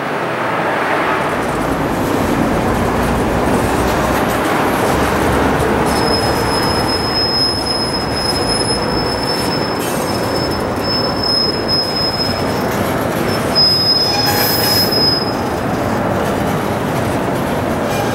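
Freight cars rolling slowly on yard track with a steady rumble. About six seconds in a thin, high wheel squeal starts, and it stops a few seconds before the end.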